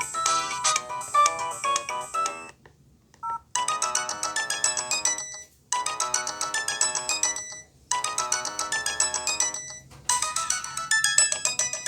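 Nokia ringtones in MIDI versions playing from an LG B470 phone. One tune stops about two and a half seconds in. After a short two-note blip, another begins and plays in repeated phrases broken by brief pauses.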